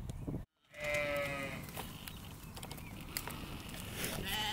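Sheep bleating: after a brief gap in the sound, one bleat comes about a second in and another starts near the end.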